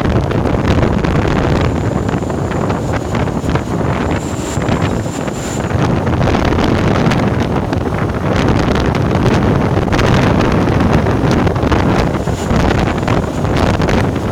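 Wind buffeting the microphone: a loud, steady rushing rumble that flutters constantly, heaviest in the low end.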